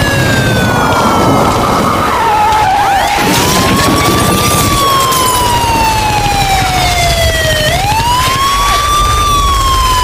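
A siren wailing. Its pitch falls slowly, sweeps up about three seconds in, falls slowly again, and sweeps up once more near the end, over a steady low rumble.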